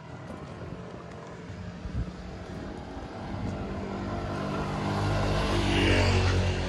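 Motor scooter coming along the street and passing close by, its engine note growing steadily louder to a peak about six seconds in.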